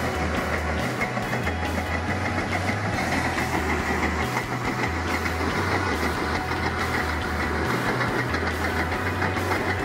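Background music with a steady beat and a stepping bass line.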